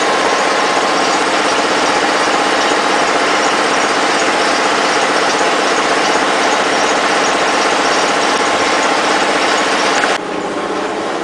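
A bus engine idling steadily, heard close up at its open engine compartment. The sound drops suddenly in level near the end.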